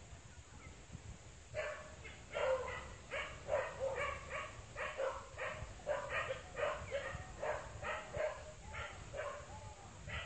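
A dog barking over and over in quick, short barks, starting about a second and a half in.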